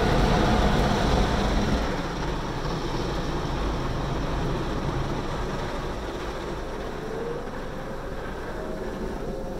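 Automatic car wash heard from inside the car: water spraying and streaming over the windshield and body while the wash machinery runs. It is loudest with a heavy low rumble for the first two seconds, then settles to a steadier, quieter wash, with a faint rising whine near the end.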